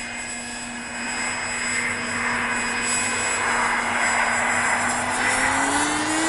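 Electric motor and propeller of a Sky Hunter radio-controlled plane running as the plane makes a close, low pass, growing steadily louder as it comes near. The motor's pitch rises near the end.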